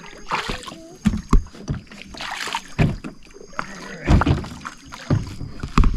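Sit-on-top fishing kayak being boarded in shallow water and paddled off: knocks and bumps on the hull, with irregular splashes and swishes of water from the paddle and the launch.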